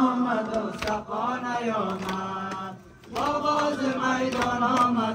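Men chanting a Shia Ashura mourning lament (noha), holding long sung notes with a short break about three seconds in. Regular chest-beating strikes keep time about twice a second.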